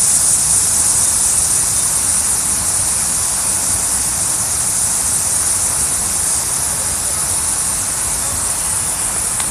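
Water fountain splashing: a steady, even hiss of falling water, strongest in the high range.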